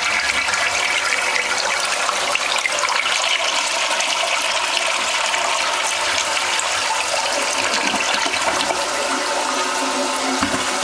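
1978 American Standard front-trap toilet flushing: a loud, steady rush of water through the bowl and trap.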